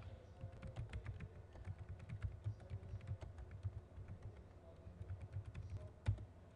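Rapid, irregular light clicking and tapping, with one louder knock about six seconds in.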